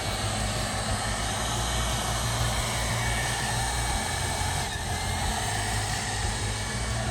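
ILIFE V8s robot vacuum running under remote control, its suction motor and brushes giving a steady whirring hum.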